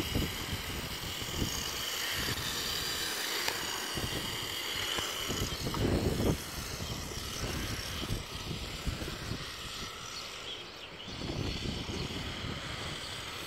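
HSP Flying Fish 1/10-scale 4WD RC drift car running, its motor whining high and wavering in pitch, with low rumbling gusts that are loudest about six seconds in.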